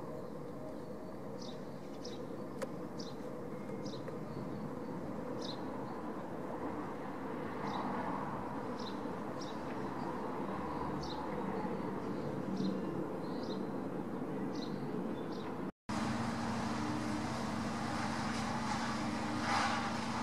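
Distant jet engine noise from a four-engine Airbus A380, with Rolls-Royce Trent 900 engines, flying past: a steady, even rumble, with short high chirps about once a second. The sound cuts out briefly about 16 s in and returns as a different steady drone with a low hum.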